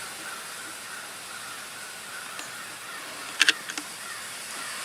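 Faint steady hiss, broken about three and a half seconds in by a quick cluster of two or three sharp clicks as a hot glue gun and the metal coffee can are handled.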